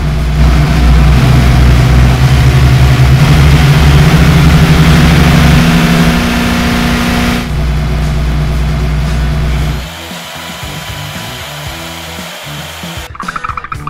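Dubbed engine sound effect for a toy car, a loud buzzing run whose low tone steps up in pitch over the first few seconds. It falls away in two stages, at about seven and a half and about ten seconds in, to a quieter running sound.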